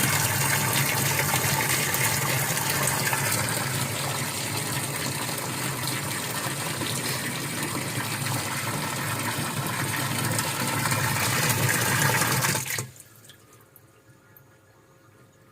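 Water running steadily, then cutting off abruptly about thirteen seconds in, leaving a few faint drips.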